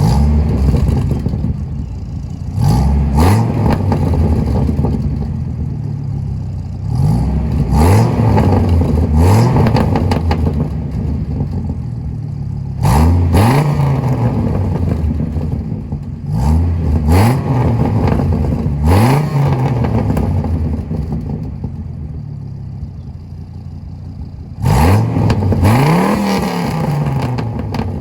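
1997 Dodge Ram 2500's 8.0-litre V10 revved through a custom exhaust, about a dozen quick throttle blips in ones and twos, each rising sharply and falling back to a rumbling idle, with crackles from the exhaust.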